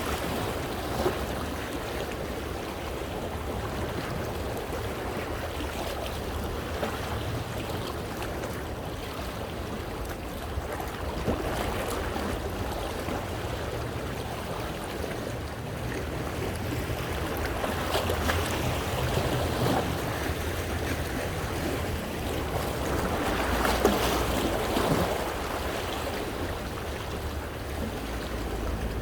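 Small sea waves washing over and around coastal rocks, a steady splashing wash that swells louder a couple of times, with some wind rumble on the microphone.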